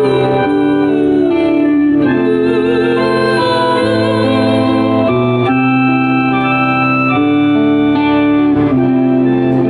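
Live amplified band music carried by sustained organ-style keyboard chords that change every second or two, with a wavering melodic line over them.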